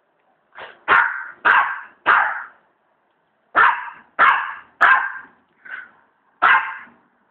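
Small terrier barking in short, sharp single barks, about nine in two runs with a pause near the middle. It is demand barking: the dog wants someone to play with the toy.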